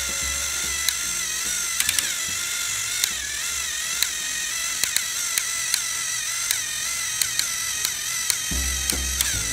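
Battery-powered motorized toy train engines whining steadily as two of them push against each other head-on on plastic track. Their gears click sharply at irregular moments.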